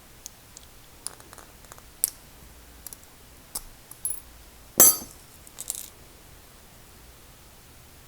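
Small metal parts of a disassembled American Lock 1106 padlock clicking and clinking as they are handled, a handful of light ticks with one louder clink a little before five seconds in.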